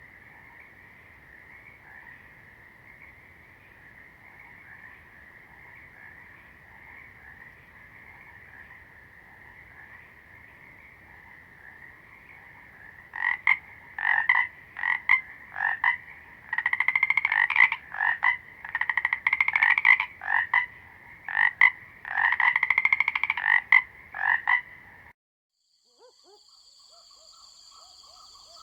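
Frog chorus. A steady, faint background of calling frogs, then from about halfway in a much louder frog calls close by in repeated croaking bursts. The recording cuts off abruptly near the end.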